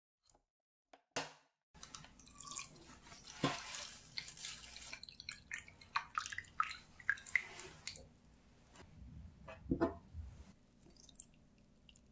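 Orange juice running from a citrus juicer's spout and splashing into a stainless steel bowl, in irregular splashes and drips with small clicks. It starts about two seconds in, after a few faint clicks.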